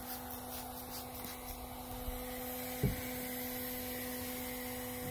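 Electric heat gun running with a steady hum, blowing hot air over the kayak's plastic hull, with one brief low thump about three seconds in.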